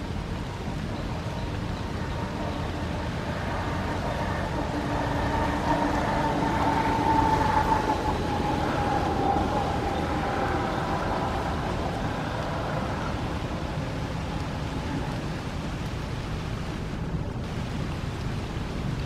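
Steady outdoor rumble of wind and distant traffic, with a motor vehicle passing in the middle, its engine note swelling and sliding a little lower as it goes by.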